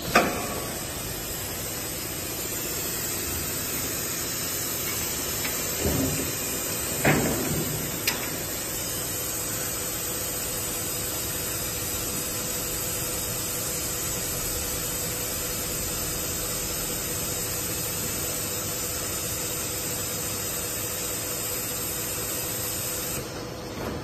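Steady hiss of an automatic paint-bucket filling and palletizing machine at work, with a sharp knock just after the start and three lighter clunks a few seconds later as the gripper head works the metal pails. The hiss drops away near the end.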